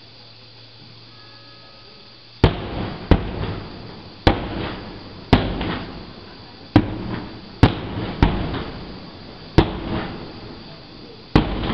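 Aerial firework shells bursting: after about two seconds of quiet, a run of about nine sharp bangs a second or so apart, each trailing off in a rumble.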